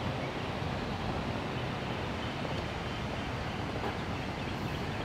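Wind buffeting the microphone outdoors: a steady low rumble with a hiss above it.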